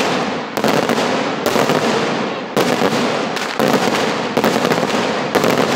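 Aerial fireworks shells bursting overhead in quick succession: a sharp bang about once a second, with dense crackling filling the gaps between them.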